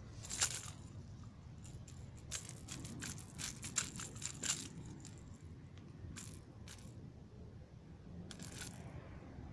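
Handling noise while a freshly caught largemouth bass is held: irregular light clicks and rattles, bunched together in the middle and thinning out after.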